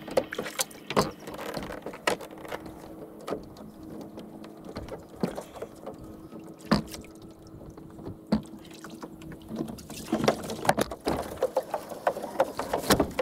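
Scattered knocks, clunks and creaks of a plastic fishing kayak and its gear bumping against a wooden dock as a person climbs out onto the boards, with the clatter thickening toward the end. A faint steady hum sits underneath for most of it.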